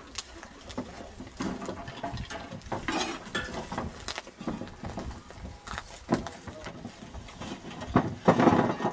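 Irregular knocking and clattering of shovels, a wheelbarrow and other tools being handled and unloaded from a trailer, with a louder call near the end.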